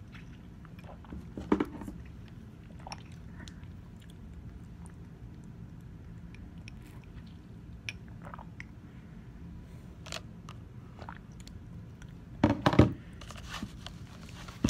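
Mouth sounds of sipping juice through a metal straw, with scattered small clicks of tableware. There is a louder knock about a second and a half in and a short cluster of knocks near the end, over a steady low room hum.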